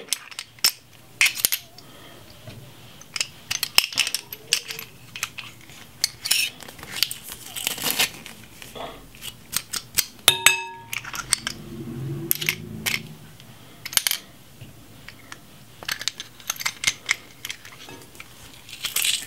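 A stainless-steel garlic press clicking, tapping and scraping against a glass mixing bowl as garlic cloves are crushed and the pulp knocked off onto the fish. There are many short sharp clicks, with one clear ringing clink about ten seconds in.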